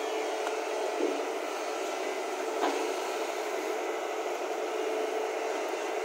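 JCB tracked excavator's diesel engine and hydraulics running steadily as the arm lowers the bucket into the mud, with two brief knocks about a second and just under three seconds in.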